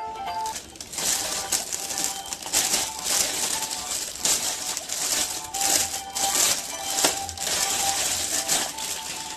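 Clear plastic wrapper crinkling as it is pulled and worked off a plastic toy car, a dense irregular crackle starting about a second in, over quieter background music.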